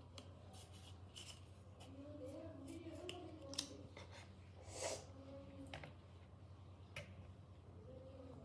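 Hands handling an iPhone box and its contents: scattered light clicks and taps, with a short rustle about five seconds in.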